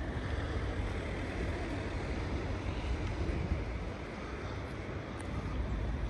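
Steady low rumble of outdoor city street ambience, with no distinct events standing out.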